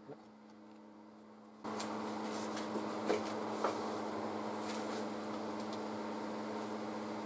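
Steady hum and hiss with a few faint clicks. It gets louder about a second and a half in.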